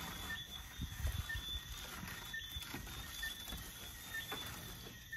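A long-handled float working wet cement render on a concrete block wall, in irregular scraping strokes and dull knocks. Behind it a steady, high chirping of night insects or frogs repeats about once a second.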